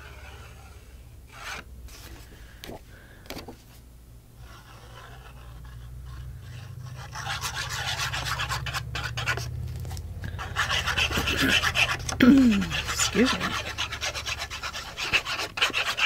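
Hands rubbing and pressing a freshly glued piece of patterned paper flat onto a kraft cardstock journal page: a dry, scratchy rubbing that starts about seven seconds in and keeps on. A few short falling squeaks come around twelve seconds in.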